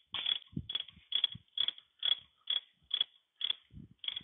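Socket ratchet wrench clicking in short, even strokes about twice a second as the nut is run off the end of a tractor final drive shaft.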